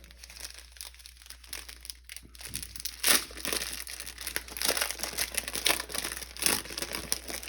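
Plastic packaging crinkling and rustling as it is handled: irregular crackles, sparse at first and busier from a few seconds in.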